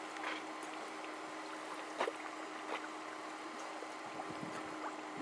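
Small mud pots bubbling, gas bursting through wet mud in a few soft plops over a steady hiss, with a faint steady hum underneath.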